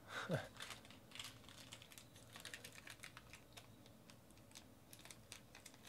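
Faint, irregular crackling and ticking of a clear plastic wrapper being handled and pulled open by hand. A brief falling sound comes about a third of a second in.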